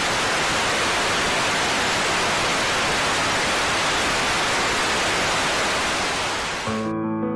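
Steady static hiss of an old-film sound effect. It cuts off about a second before the end as soft electric-piano music begins.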